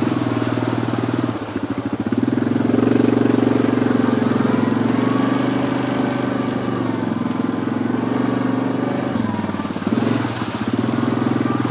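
Yamaha ATV engine running steadily under throttle, easing off briefly about a second in and again near the end.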